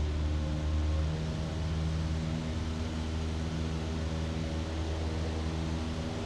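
Light aircraft's engine and propeller droning steadily, heard inside the cabin; the deepest part of the hum eases slightly about a second in.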